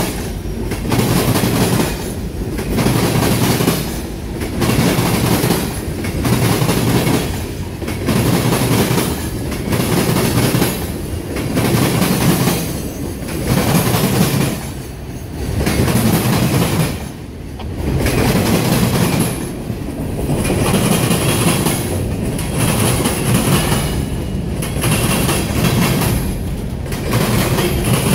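Freight cars rolling over a railroad diamond crossing, the wheels pounding the crossing in a loud, continuous clatter. The clatter swells and eases about every two seconds as each car's wheel sets cross.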